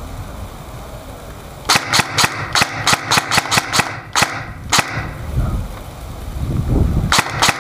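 Airsoft gun firing a string of about a dozen sharp shots, roughly four a second, then a second quick string starting near the end.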